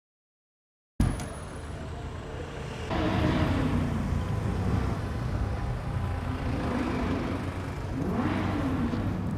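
A vehicle engine revving and accelerating, cutting in about a second in, its pitch climbing and falling several times.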